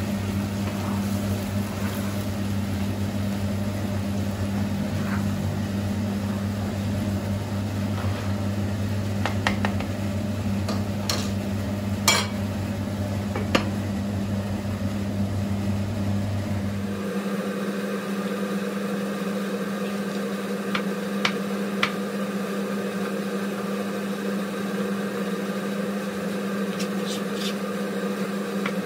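A steady low machine hum with a few sharp clicks and knocks in its middle part. About seventeen seconds in the sound changes abruptly: the deepest part of the hum stops, and a hum with higher, evenly stacked tones carries on.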